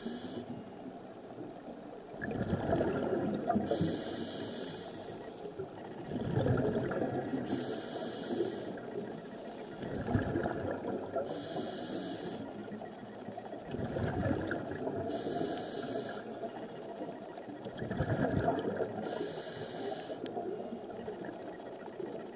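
Scuba diver breathing through a regulator underwater: a hissing inhale, then a bubbling rush of exhaled air, repeating about every four seconds.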